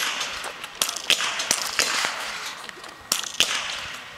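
Small-bore .22 biathlon rifles firing on the range: about six sharp cracks at uneven intervals from several shooters, over a steady background hiss.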